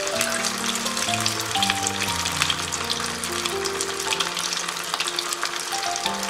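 Corn and potato kebab rolls deep-frying in hot oil in a kadhai over a high flame: a dense, steady crackling sizzle. Soft background music plays underneath.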